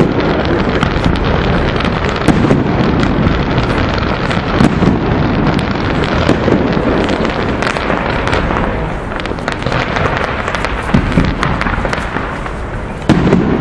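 Fireworks going off: a continuous crackle packed with many sharp bangs, easing a little after the middle, then a sudden louder bang near the end.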